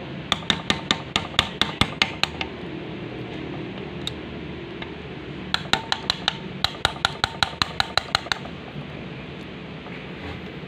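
Two runs of quick, ringing metal-on-metal taps, about five or six a second: a gasket scraper being hammered into the silicone-sealed joint of a manual transmission case to pry the halves apart.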